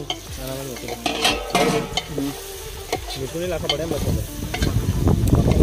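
Metal spoon stirring and scraping chopped tomatoes in a metal pot over a wood fire, the tomatoes sizzling as they fry. The sizzling and scraping grow louder near the end.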